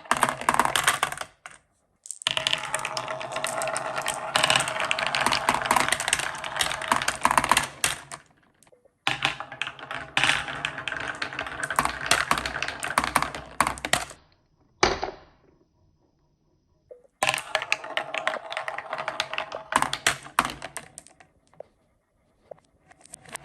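Marbles rolling and clattering down a handmade wooden track. The clatter comes in several stretches of a few seconds each, broken off by short silences, with a single sharp click about fifteen seconds in.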